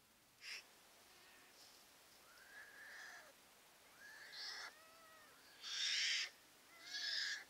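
Newborn black bear cubs crying and squalling in the den: a series of high, wavering cries, the last two loudest and harshest. This cry is typical of cubs that are cold or hungry and not in a position to nurse.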